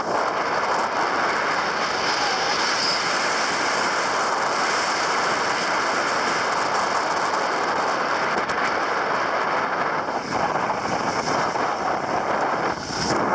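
Skis sliding and scraping over the snow in a steady rough hiss, with wind rushing over the microphone.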